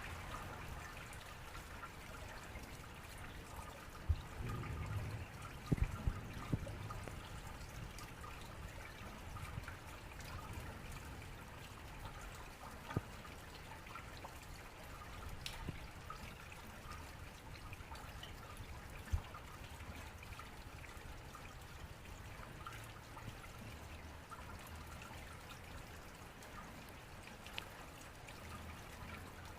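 Rainwater running down a drainpipe and trickling into a drain, a steady splashing flow with scattered drips and a few sharper splats and knocks, most around four to seven seconds in.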